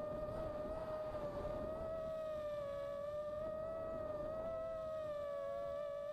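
Brushless motors of a 285 mm FPV quadcopter whining steadily, heard from its onboard camera; the pitch wavers slightly and splits into two close tones about four and a half seconds in as the motors change speed, over a low noise.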